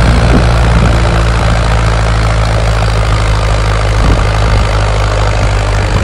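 Tractor engine running steadily under load as it pulls a harrow filled with soil through ploughed ground.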